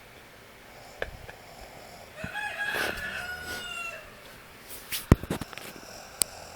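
A rooster crowing once, a long call that sags in pitch toward its end. Several sharp clicks and knocks around it, the loudest about five seconds in.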